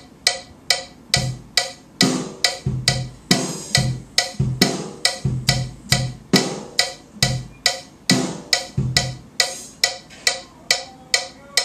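Drum kit being played: sharp, evenly spaced strokes about three a second, with kick drum beats landing among them at uneven intervals.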